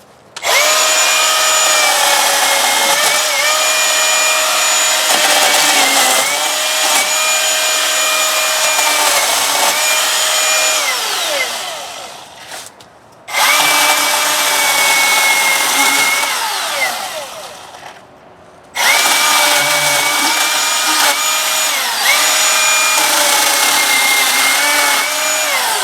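Milwaukee M18 battery chainsaw running in three long bursts, a steady whine whose pitch dips now and then as the chain bites into wood, winding down each time the trigger is released.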